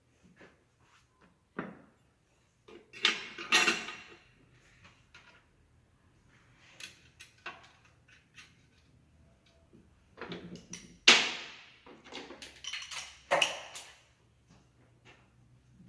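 Clinks, knocks and clatter of gearbox parts and tools being handled during a manual gearbox rebuild, in irregular clusters with short quiet gaps. The loudest is a sharp knock a little after the midpoint.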